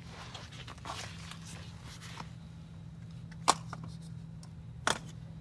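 Handling noises: light rustling, then two sharp clicks or knocks about a second and a half apart, over a steady low hum.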